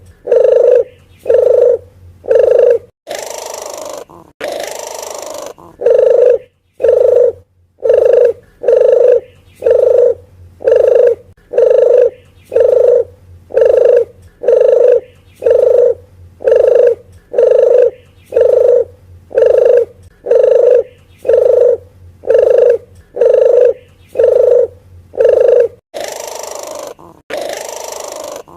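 Recorded lure call of a puter geni dove: short cooing notes repeated evenly, about one a second. Twice the cooing breaks for a pair of longer, rasping, hiss-like calls. A faint steady hum runs underneath.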